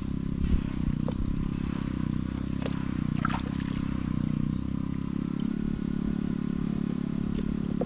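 A small engine running steadily with an even low hum, with a few faint clicks over it.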